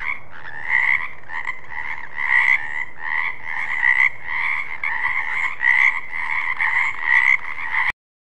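Frogs croaking in a chorus, calls repeating about three times a second over one another. The sound cuts off suddenly near the end.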